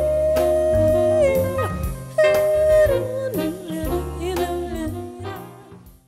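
Music: the closing bars of a song, a long held melody note over bass and drum hits, fading out near the end.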